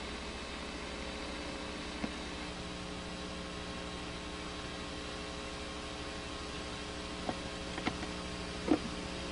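Steady electrical hum with hiss in the recording, and no other sound apart from a faint click about two seconds in and a few more short faint clicks near the end.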